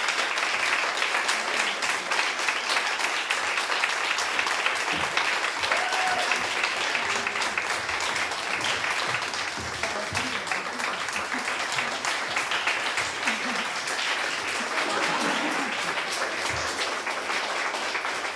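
An audience applauding: dense, sustained clapping from many hands that eases a little about halfway through.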